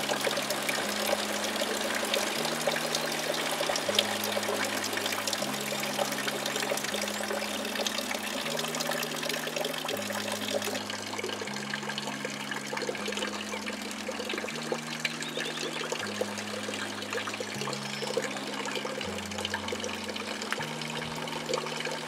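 Water trickling and running steadily, with soft background music underneath: slow low notes changing every second or two.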